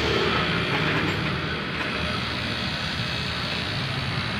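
Machinery running steadily with a low hum while the air-conditioning system is charged with freon.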